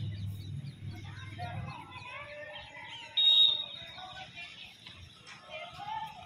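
Outdoor ambience of birds chirping and calling, with a low rumble during the first couple of seconds. About three seconds in comes a brief, loud, high steady whistle-like tone.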